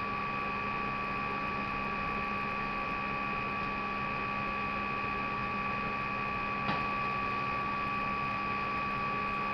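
Steady electrical hum and hiss with a few unchanging tones, and one faint click about two-thirds of the way through.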